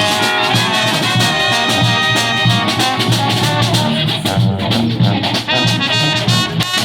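Brass band playing live: trumpets and trombones over a pulsing low bass line and drums. About four seconds in, the horns move from held notes to short, clipped stabs.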